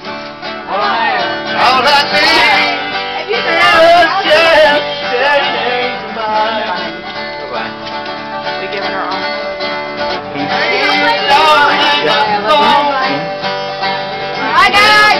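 Guitar played live, with a voice singing along in a wavering, bending line.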